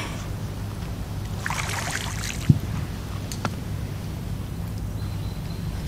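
Fishing gear being handled on the bank: a brief rustle about one and a half seconds in, then a sharp knock a moment later and a fainter click, over a steady low rumble.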